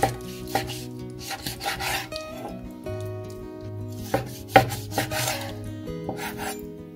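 Chef's knife cutting raw chicken wings apart at the joint: the blade scrapes through skin and flesh and knocks sharply on a wooden cutting board several times, the loudest knock about four and a half seconds in. Soft background music runs underneath.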